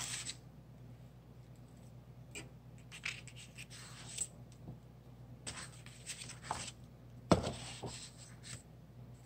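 Sheets of cardstock and paper being handled and slid across a tabletop: soft rustles and scrapes, with one sharper knock about seven seconds in.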